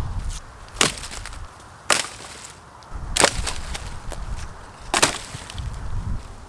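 Wood being struck hard four times, a second or so apart: sharp, splintering knocks such as chopping or splitting firewood, over a low rumble of wind on the microphone.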